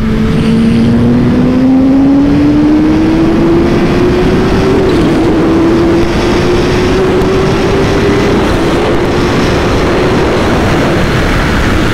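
Kawasaki Ninja H2's supercharged inline-four pulling hard under heavy throttle, short of wide open, its pitch climbing steadily for about eight seconds before levelling off and fading. Loud wind rush on the microphone runs under it.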